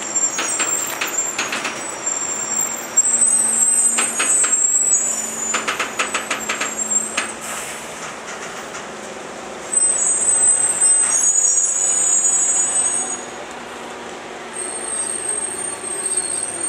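Heavy-haul truck and multi-axle trailer carrying an Airbus A380 fuselage section creeping past, with high-pitched squeals that come and go and runs of rapid clicking in the first half.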